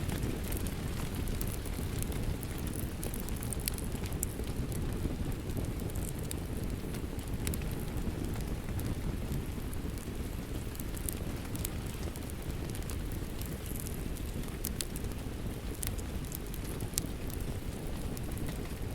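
Steady rain with a wood fire crackling: an even low rush, with scattered sharp crackles and pops throughout.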